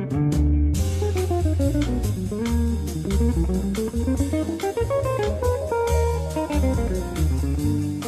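Background music: a guitar playing quick rising and falling runs of notes over a bass line and drums.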